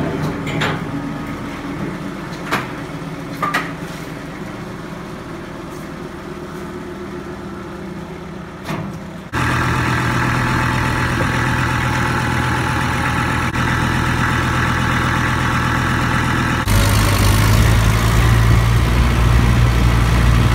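Kubota tractor's diesel engine running steadily, with a few sharp knocks in the first few seconds. The engine sound jumps louder twice, about nine and seventeen seconds in.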